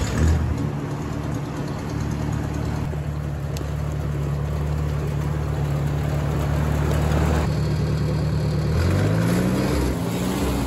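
The four-cylinder gasoline engine of a 1957 Ford Workmaster 641 tractor running at a steady low speed. About nine seconds in, its speed rises and then wavers up and down.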